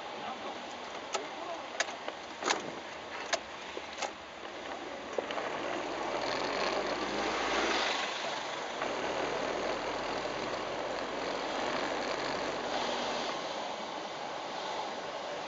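Road vehicle noise: a steady rush of engine and tyres. Five sharp clicks come in the first few seconds, about one every three-quarters of a second, and then the noise swells and falls back.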